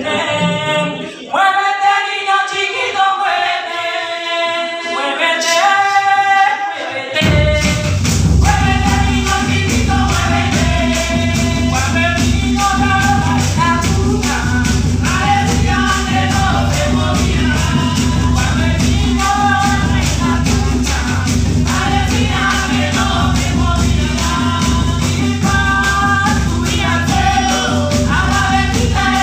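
Voices singing unaccompanied. About seven seconds in, a Colombian Pacific marimba ensemble (marimba de chonta, bombo and cununo drums) comes in under the singers, with heavy drumming and a fast, even rattling pulse.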